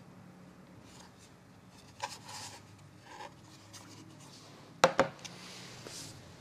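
Hard plastic being handled: a Becker Map Pilot navigation module rubbed and slid into its black plastic holder, with faint scraping throughout. A small click about two seconds in, then two sharp clicks close together about five seconds in as the plastic parts meet.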